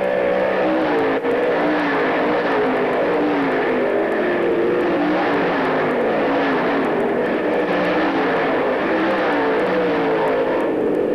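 Several dirt track race car engines running hard at once as the cars race around a dirt oval. Their pitches rise and fall, overlapping, as the cars go through the turns and pass by.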